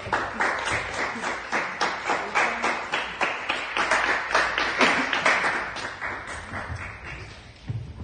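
Audience applauding with fast, dense clapping that fades away near the end.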